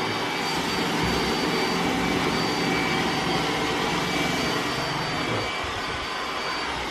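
iRobot Roomba s9+ robot vacuum running on max power: a steady whir of its suction motor and brushes, with a thin high whine over it.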